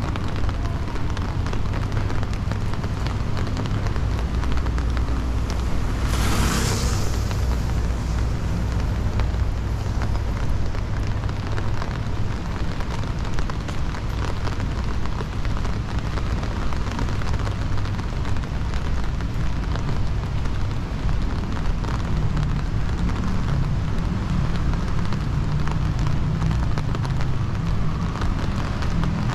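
Busy city street ambience: a steady rumble of traffic. About six seconds in there is a brief, sharp hiss.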